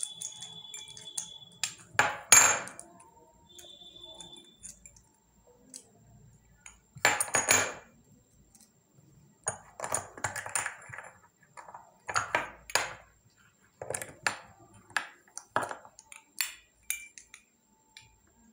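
Handling noises from a yoyo and its string being unpacked: irregular rustles, taps and light clinks, the loudest about two seconds in and again about seven seconds in.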